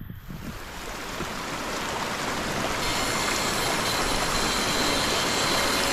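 Rushing water: a steady hiss that builds over the first two or three seconds, then holds.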